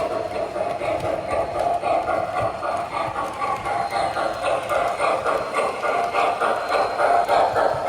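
O gauge model train running on the layout's track, a steady rolling sound with regular rhythmic clicking, about three or four a second, that grows a little louder from about halfway through as the train comes nearer.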